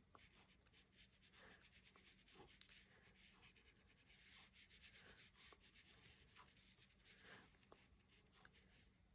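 Near silence, with faint, irregular rubbing strokes of a watercolour paintbrush across a paper book page, a little fuller about halfway through.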